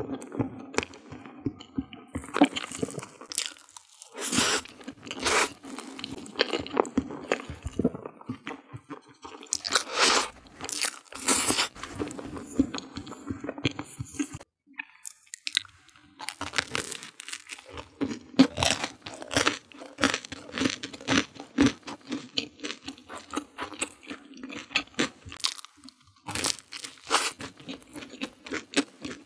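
Close-miked eating sounds: chewing and crunching of a soft mousse cake and a piece of baked pizza crust, with a brief pause about halfway.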